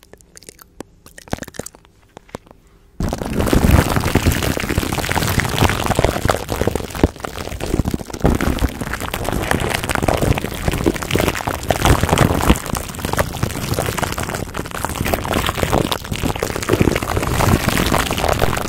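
Quiet mouth clicks, then about three seconds in a sudden switch to loud, dense crinkling and crackling of plastic wrap rubbed and scrunched over a microphone.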